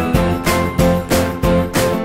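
Background music with a quick steady pulse of struck, pitched notes, about three a second, over a bass line.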